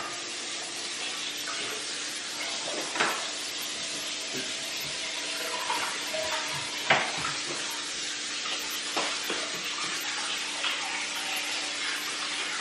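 Scattered clinks and knocks of kitchen utensils and containers being handled on a countertop, the sharpest about three seconds in and about seven seconds in, over a steady hiss with a faint hum.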